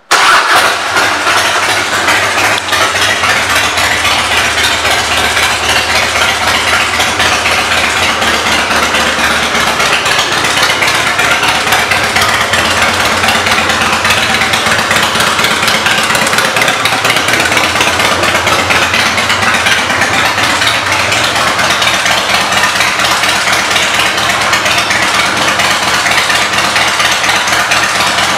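The Twin Cam 88B V-twin of a 2002 Harley-Davidson Night Train idling steadily through Rinehart aftermarket exhaust pipes. The engine sound comes in suddenly at the start.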